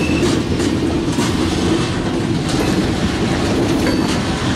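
Covered hopper cars of a cement freight train rolling past: a steady rumble of steel wheels on rail, with irregular clicks as the wheels pass over rail joints.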